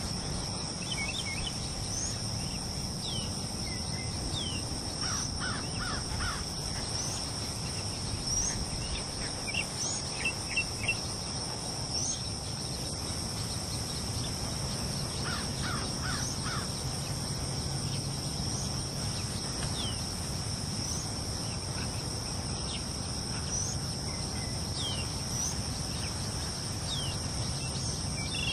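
Steady high-pitched insect chorus from the field, with birds calling over it: short chirps every second or two, and a crow cawing in runs of three or four, loudest about ten seconds in.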